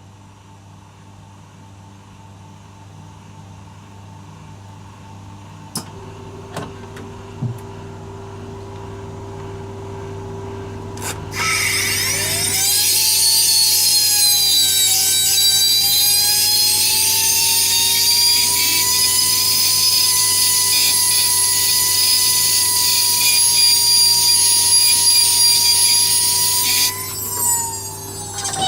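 A high-speed workshop tool or rotor starts up with a loud hiss and a steady whine that rises slightly, runs for about fifteen seconds, then cuts off and winds down in a falling tone. Before it, a few light clicks over a low hum.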